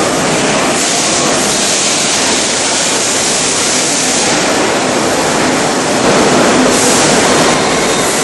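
Corner weld seam finishing machine running, its abrasive heads grinding a weld seam: a loud, steady, noisy rush, with a brighter hiss swelling about a second in and again near the end.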